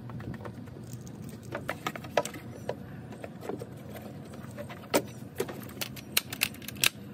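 Metal tools and parts clinking and tapping irregularly during hands-on work on a car, with sharper knocks about five seconds in and several near the end.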